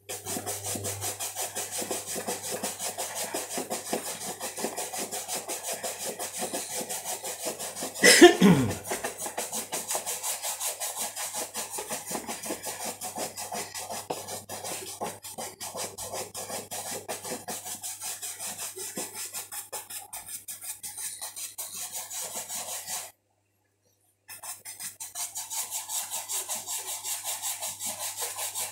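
Bristle shoe brush buffing a polished leather moccasin in rapid, even strokes, raising the shine once the polish has soaked into the leather. About eight seconds in, a brief loud sweep falls steeply in pitch, and the sound cuts out for about a second near the end.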